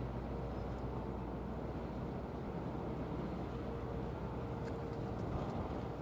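Strong gusty wind rumbling on the microphone, with a steady low drone and a faint hum that fades in and out, from the engines or generators of a docked ferry.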